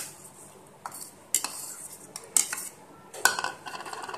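A metal spoon scraping and clinking in a stainless steel bowl as bottle gourd is stirred into thick curd, with several sharp taps among softer scraping.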